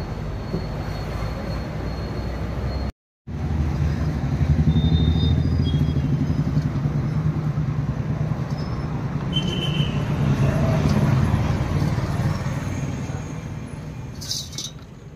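Motor vehicle engine running with a steady low rumble, in street traffic. The sound drops out completely for a moment about three seconds in and fades away near the end.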